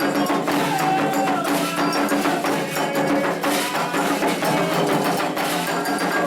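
Candomblé ritual music: a fast, steady beat of drums and a struck bell, with voices singing over it.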